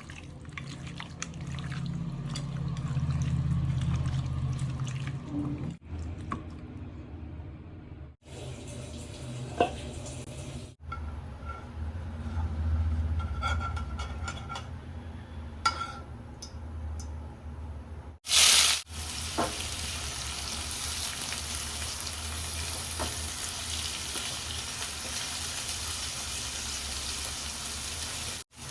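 Kitchen cooking sounds in several short cuts: running water and a few clicks and knocks, then a brief loud rush, then about ten seconds of steady sizzling from food frying in a pan.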